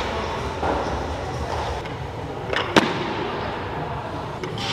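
Two sharp impacts of gym weights in quick succession about two and a half seconds in, over the steady low hum of a large gym hall.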